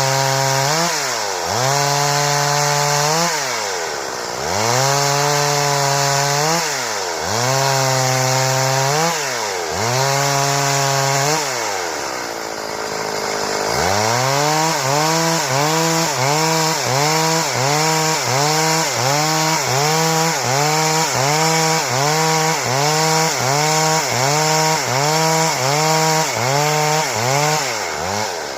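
Stihl chainsaw running at high revs and cutting wood. Its engine pitch sags and recovers over and over as the chain bites into the cut. A little before halfway the pitch drops off briefly, then the dips come quicker and more regularly.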